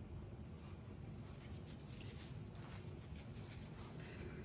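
Faint, scratchy strokes of a paintbrush on stretched canvas, over a steady low room hum.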